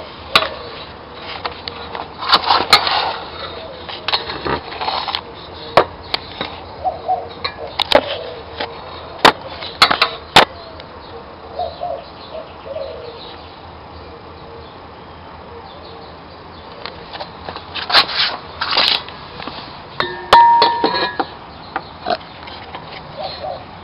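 Hand tools and metal engine parts clinking and knocking in scattered sharp strikes during engine disassembly, with two louder stretches of rattling, a couple of seconds in and again past the middle.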